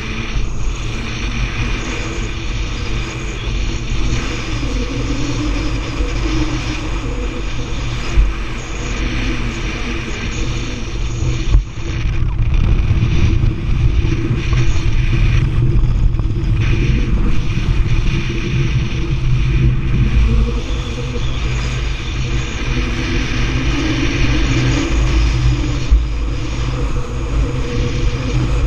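Motorboat engine running steadily under way, a loud constant drone with a rushing noise over it.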